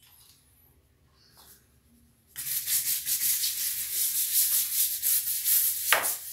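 Oxalic acid crystals shaken out of a plastic container onto ceramic floor tiles: a dense, rapid, rattling hiss of granules that starts about two seconds in, with a sharper tap just before the end.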